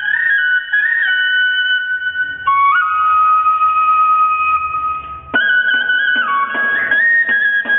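Traditional Peruvian flute playing a melody of held notes that step up and down in pitch. About five seconds in, a steady percussion beat of drum or tambourine strokes joins it.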